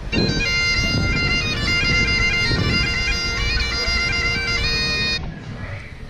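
Bagpipes playing a tune, the chanter's notes stepping over a steady held drone, cutting off abruptly about five seconds in.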